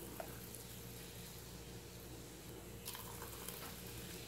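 Thick blended strawberry mousse being poured from a blender jug into a crystal goblet: faint, over a steady low hum, with a light click about three seconds in.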